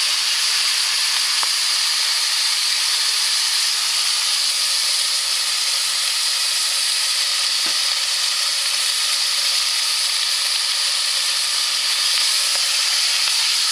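Chopped sausage and bacon sizzling steadily in hot fat in a cast-iron pot, with sweet and sour sauce just poured in. A wooden spoon stirs the pot near the end.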